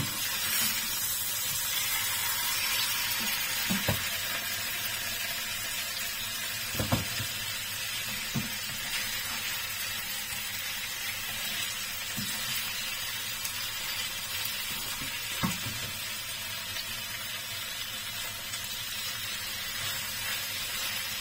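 Fatty salmon belly pieces sizzling steadily as they fry in a nonstick frying pan. A slotted spatula knocks lightly against the pan a few times as the pieces are turned and lifted.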